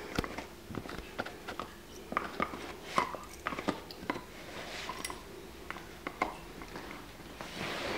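Puggle chewing and gnawing on a fetch-stick chew toy: irregular clicks and snaps of teeth biting into the toy.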